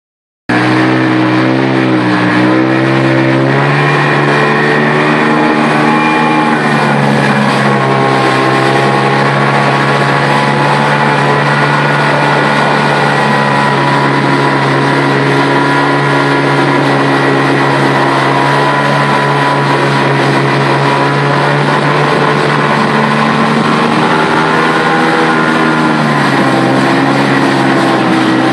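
Watercraft engine running at speed over a steady hiss of water and wind. Its pitch dips and rises a few times as the throttle changes.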